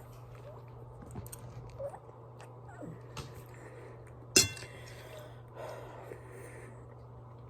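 Eating utensil clinking against a dish, with scattered small clicks and one sharp, ringing clink a little past the middle, over a steady low hum.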